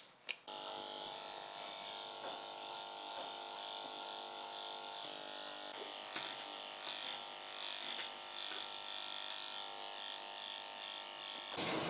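Electric dog grooming clippers with a number 10 blade, switched on with a click and running with a steady hum while shaving matted armpit hair, cutting off shortly before the end.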